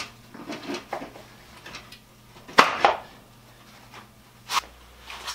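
Scattered knocks and clatter of a wooden seat base being handled and set onto a treadle grinder's metal frame, with a pair of sharper knocks about two and a half seconds in and another near the end.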